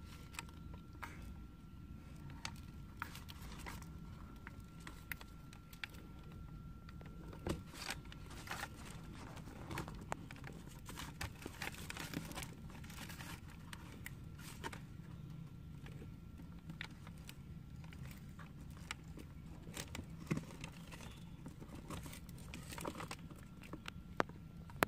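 Young sulcata tortoises eating carrot pieces: faint, irregular crunches and clicks of biting, mixed with newspaper crinkling under their shells and feet.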